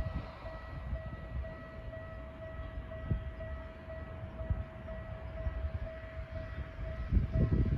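Old-style electric-bell warning signal of a Japanese railway level crossing ringing steadily, its tone pulsing about twice a second: the crossing is warning of an approaching train. A low rumble swells near the end.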